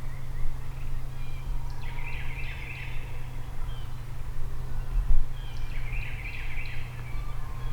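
A distant wild turkey calling twice, each call a rapid rattling burst about a second long, over a steady low hum.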